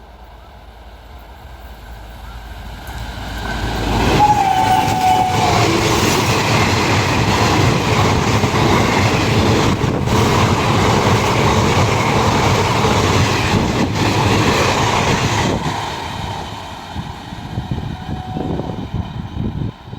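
Train approaching and passing at speed: its horn sounds one long blast about four seconds in as it arrives, then the rush and clatter of the coaches on the rails runs loud for about twelve seconds before fading away, with a short fainter horn note near the end.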